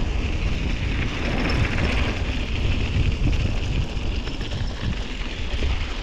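Wind buffeting the microphone of a camera on a moving bicycle: a loud, continuous low rumble with a steady hiss above it.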